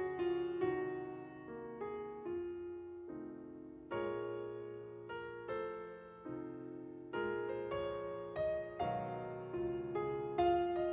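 Background piano music: a slow, gentle melody of single notes and chords, each note struck and left to fade.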